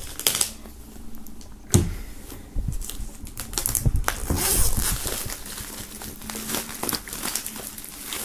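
Plastic shrink-wrap film being slit with a knife and pulled off a hardcover box, crinkling and rustling, with a sharp knock about two seconds in.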